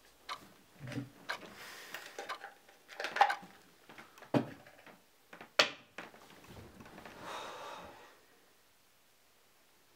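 Bedding rustling as someone turns over in bed, with several sharp knocks from something handled on a bedside table. A single clock tick comes at the very start, and it goes quiet for the last second or so.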